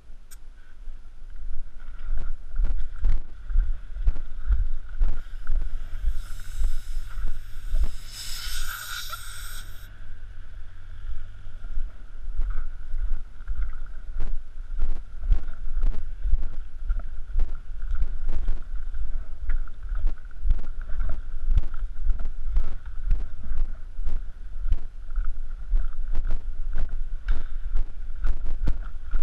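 Wind buffeting a head-mounted camera's microphone as a paintball player walks, with irregular knocks and clicks from footsteps and gear. A burst of hiss runs from about six to ten seconds in.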